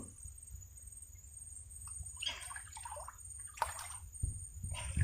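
Faint water sloshing and splashing in a few short bursts, about two seconds in, near four seconds and again near the end, over a steady low rumble.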